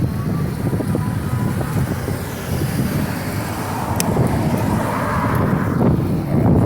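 Wind buffeting the microphone and road noise from riding an electric bike along a street. A faint rising whine comes in the first couple of seconds, and the road noise swells about five seconds in.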